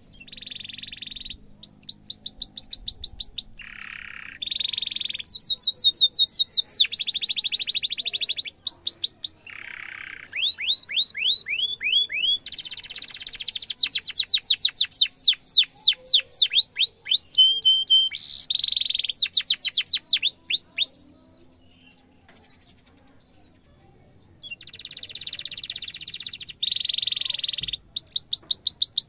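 Domestic canary singing: a long song of phrases made of fast, evenly repeated falling whistles alternating with buzzy rolls. The song breaks off for about three seconds roughly two-thirds of the way through, then resumes.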